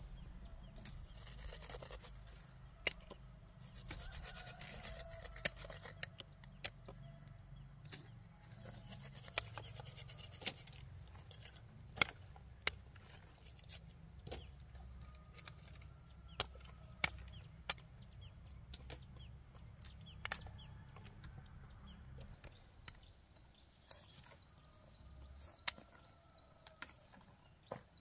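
Irregular sharp clicks and snaps of cassava roots and stems being handled and broken off by hand, over a low steady rumble. An insect chirps in a fast, even series over the last few seconds.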